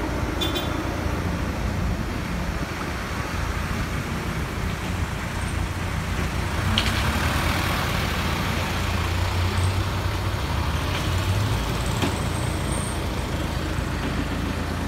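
Large truck engine running steadily with a low rumble that swells for a few seconds past the middle, with a few faint clicks.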